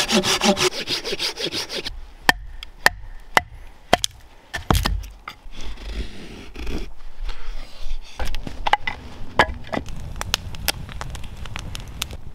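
A saw cutting wood with quick, even strokes for about two seconds. Then come scattered sharp clicks and scraping cuts as the Esee PR4 fixed-blade knife carves wood.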